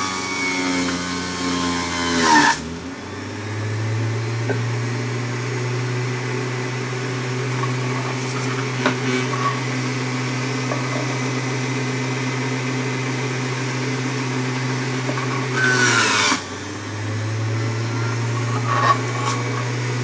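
Electric centrifugal juicer motor running with a steady hum. Twice, about two seconds in and again near sixteen seconds, fruit pushed down the chute with the plunger grinds loudly against the spinning cutter disc: the motor's whine drops under the load and then spins back up.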